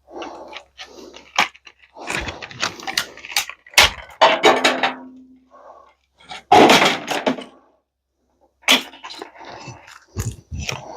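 Metal parts of a microwave oven being pried and pulled apart: irregular clanks, knocks, rattles and scraping, with a short low hum about four seconds in and the loudest clatter a little past the middle.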